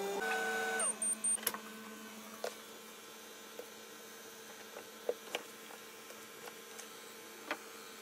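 Microwave oven being set and started: three short high keypad beeps about a second in, then a steady low hum from the running oven. A few faint clicks and taps come over it.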